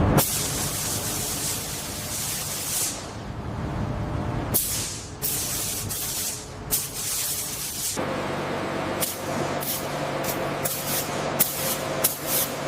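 Compressed air hissing in on-off bursts during surface finishing for primer: long blasts at first, then shorter, quicker ones. A low steady machine hum joins about two-thirds of the way through.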